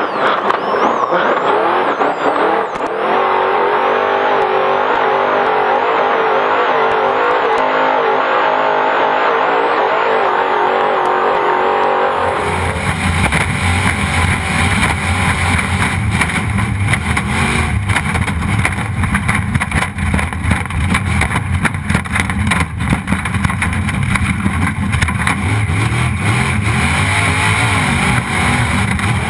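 Off-road Trophy Truck racing at speed, its engine running hard under the rattle and rush of the rough ride. About twelve seconds in, the sound switches abruptly to a deeper engine note with a dense, constant clatter of knocks.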